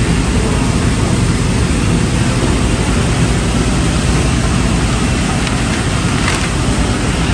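Steady, loud, even background noise at a supermarket seafood counter, with no clear single event standing out.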